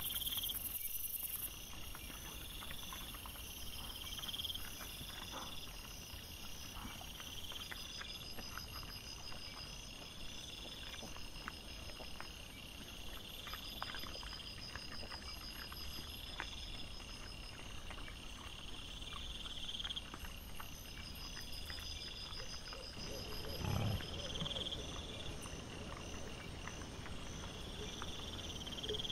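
Wild boar and piglets rooting and feeding: many scattered crunching clicks and rustles over the regular pulsed chirping of night insects. About 24 seconds in comes one short, low grunt from a boar.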